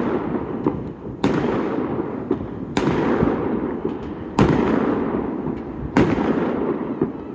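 Aerial firework shells bursting: four loud bangs about a second and a half apart, each followed by a long rolling echo, with small crackles in between.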